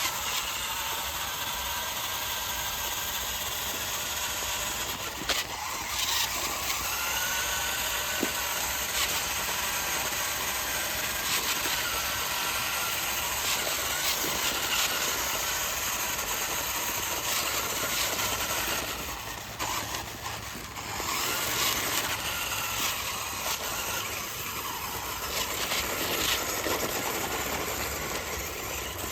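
Mini remote-control toy monster truck running, a steady noisy whir with a few sharp clicks, easing off briefly about two-thirds of the way through.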